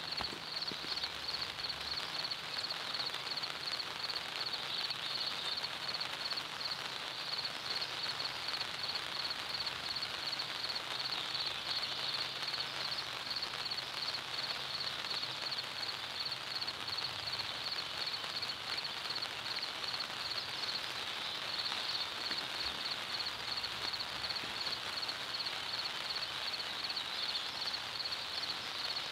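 Steady outdoor field ambience: an even hiss with a high, evenly pulsing trill running throughout.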